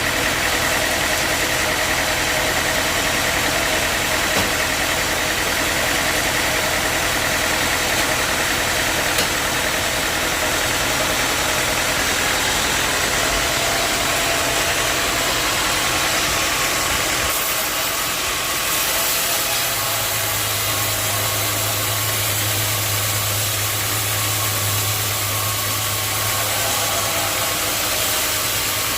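Sawmill machinery running steadily. Its sound changes a little past halfway, and a low steady hum comes in soon after.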